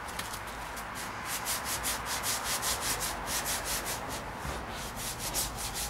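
220-grit sandpaper on a hand sanding block rubbed back and forth over cured gelcoat on a fiberglass boat hull, a rhythmic scraping of about four strokes a second. It is dry sanding to cut down a freshly applied gelcoat patch.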